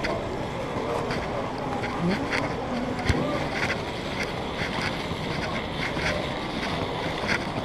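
Airport terminal concourse ambience: a steady background noise with faint distant voices, and footsteps on the tiled floor, about two a second, as the camera is carried along.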